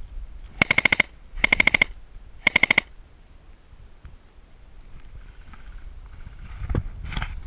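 Airsoft gun firing three short full-auto bursts in quick succession, each a rapid string of sharp clicks lasting under half a second.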